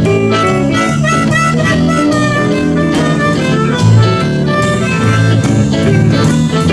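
Live blues band playing a shuffle in A, with harmonica leading over electric guitars, bass and drums.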